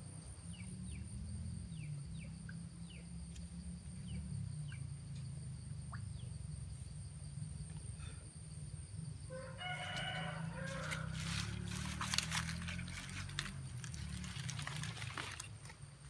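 A rooster crows once, a little past halfway through, over a steady low rumble and a thin, steady high whine. Scattered clicks and rustles follow the crow.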